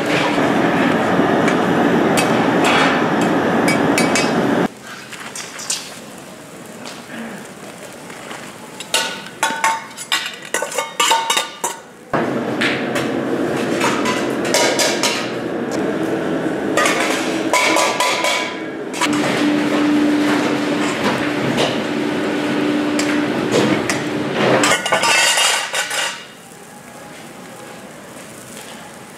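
Commercial kitchen work: metal pots, dishes and utensils knocking and clinking. A cluster of sharp knocks comes in the middle, over a steady rushing noise with a low hum that stops twice.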